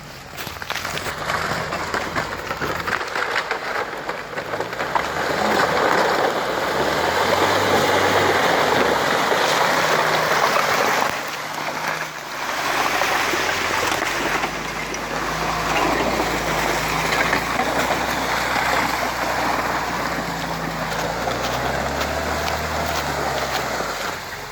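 A vehicle riding over a wet forest track: a steady rushing, splashy noise with a low hum that shifts in pitch. It grows louder about four seconds in and dips briefly around twelve seconds.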